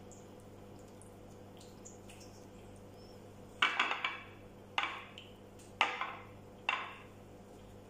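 A utensil clinking against a dish four times in the second half, each a short cluster of knocks with a brief tail, over a faint steady hum.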